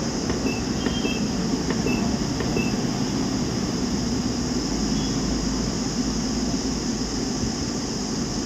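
Steady hum of room machinery, like ventilation. A few faint short high blips and ticks come in the first three seconds.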